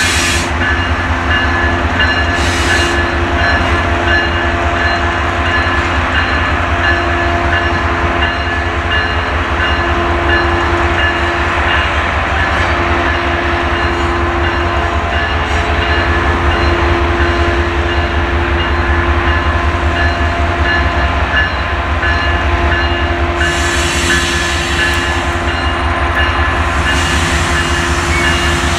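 Brookville BL20GH diesel locomotive running steadily as it moves slowly with its coaches, a continuous low engine rumble with steady tones over it. Brief hissy bursts come and go near the start and again from about 23 s to the end.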